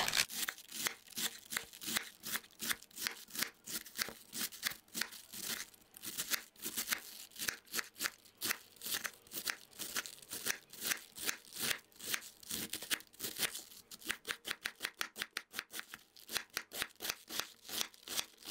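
Kitchen knife slicing a head of white cabbage thinly on a wooden cutting board: a steady run of short crunching cuts, about three a second, quickening to about five a second near the end.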